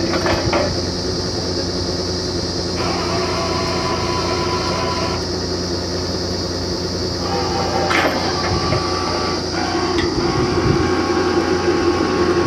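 Heavy engine of a borewell drilling rig running steadily at a constant speed, with a few light clicks and taps over it.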